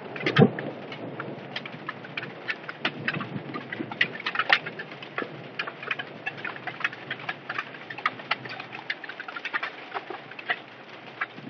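Hail falling in a heavy downpour: a steady hiss of rain with many sharp, irregular ticks and clicks of hailstones striking hard surfaces, several a second.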